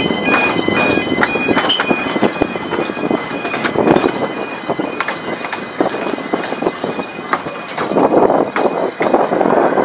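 Narrow-gauge electric tram running along the track: a steady rumble with the wheels clicking and clattering over rail joints and the points of a passing loop. A two-tone electronic beeping fades out in the first two seconds.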